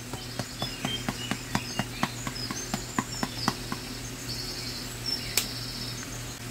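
A pepper grinder being twisted over the pan, giving a quick run of even clicks, about four or five a second, that stops after about three and a half seconds. Short high chirps follow in the second half.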